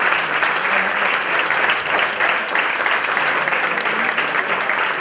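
Steady applause from a crowd of people clapping their hands, a dense run of many overlapping claps.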